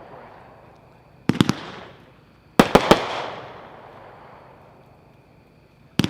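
Super Fireworks Zombie Bomb multi-shot cake firing: three clusters of two or three sharp bangs in quick succession, about a second, two and a half seconds and six seconds in, each trailing off over about a second.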